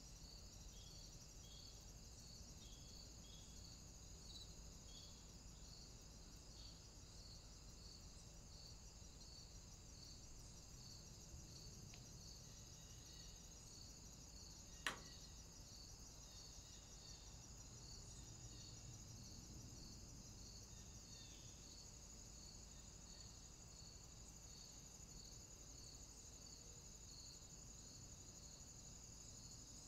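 Near silence, with a faint high-pitched chirping that repeats evenly at about two chirps a second, and one sharp click about halfway through.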